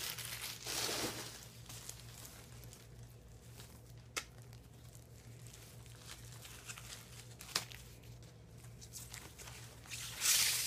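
Clear plastic wrapping crinkling and rustling as it is pulled off a new handbag's chain strap, with two sharp clicks in the middle and the loudest crinkling near the end.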